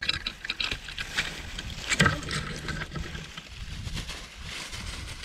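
Branches and twigs crackling and snapping as they are handled, with one sharp crack about two seconds in. Wind rumbles on the microphone.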